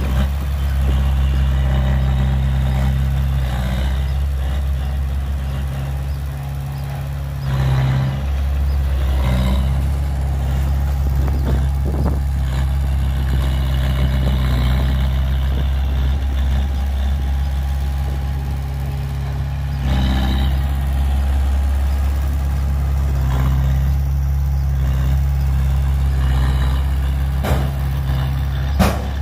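Diesel engines of a small Komatsu D20A crawler dozer and a dump truck running steadily, a low drone throughout, with a few sharp knocks and clanks, one about eight seconds in, one around twenty seconds and two near the end.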